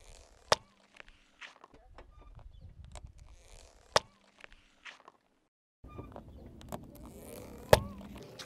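A plastic bubble-wand tube filled with bubble solution cracking under a car tyre: three sharp snaps about three and a half seconds apart, the last the loudest, each after a low rumble of the tyre rolling over asphalt.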